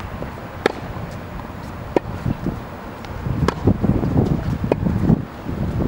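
Tennis ball struck with a racket in a rally: four sharp pops, about one every second and a half. Wind rumbles on the microphone from about halfway through.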